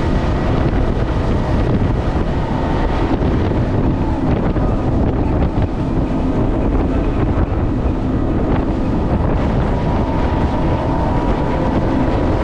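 Boat with three outboard motors running at speed: a steady engine drone under heavy wind buffeting on the microphone, with the rush of water off the hull.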